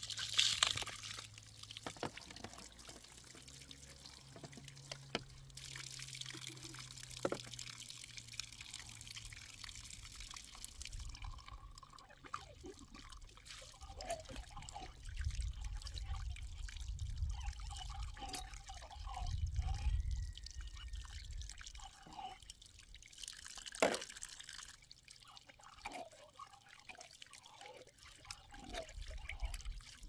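Water running from the tap of a plastic storage tank and splashing over a utensil and hands being rinsed beneath it, steady at first, then broken into trickles and drips. A low rumble partway through and a single sharp knock near the end.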